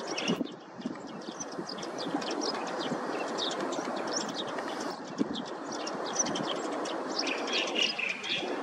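Many small birds chirping rapidly over the steady rumbling noise of a jet airliner's engines as it rolls along the runway.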